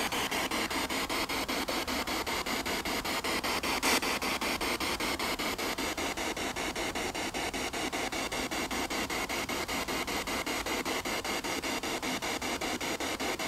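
Spirit box (ghost box radio scanner) sweeping through stations: steady radio static broken by rapid, even clicks several times a second, with one louder click about four seconds in.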